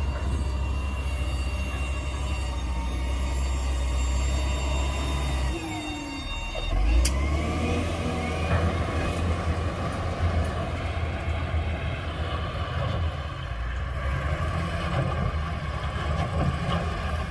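The diesel engine of heavy earthmoving machinery, a wheel loader or dump truck, running steadily. About six seconds in the sound changes, with a brief dip and a sharp click, and the engine carries on with a rougher, noisier running sound.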